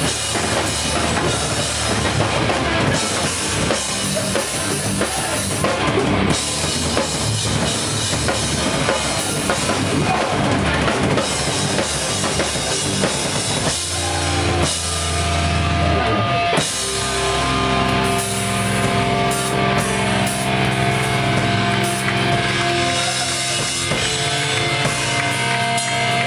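Hardcore band playing live and loud, with distorted guitars and busy, fast drumming. About halfway through, the drumming thins out and held, ringing guitar notes take over.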